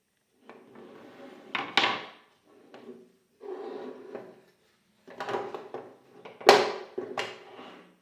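Wooden parts sliding against each other in four strokes, with sharp wooden knocks about two seconds in and twice near the end, the loudest of them about six and a half seconds in.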